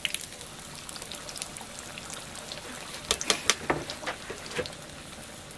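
Sel roti deep-frying in hot oil in an iron wok: a steady sizzle dotted with small crackling pops, with a burst of louder crackles about three seconds in as the ring of bread is turned with a bamboo stick.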